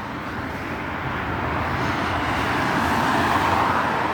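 A car passing close by on the road, its tyre and engine noise swelling to a peak about three seconds in and then easing off.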